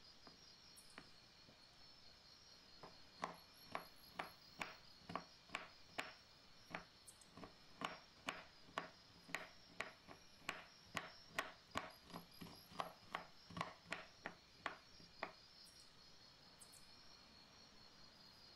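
Knife chopping shaved dark chocolate against a wooden cutting board: a run of faint knocks, about two a second, starting a few seconds in and stopping a few seconds before the end, over a faint steady high whine.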